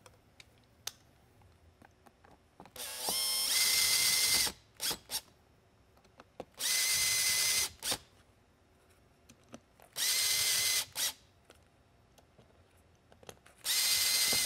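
Cordless drill/driver driving four screws into the back of a plastic lighthead housing: four runs of the motor whine, each about a second long, the first rising in pitch as it speeds up, with short blips of the motor after some of them.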